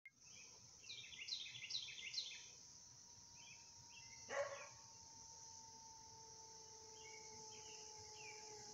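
Birds singing in series of quick falling chirps, with a single dog bark about four seconds in and a steady high hiss underneath. A faint steady whine, the approaching scooter's motor, grows slowly louder in the second half.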